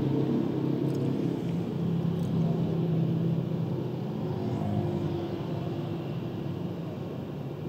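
Low, steady rumble of a car's engine and road noise heard from inside the cabin, gradually getting quieter.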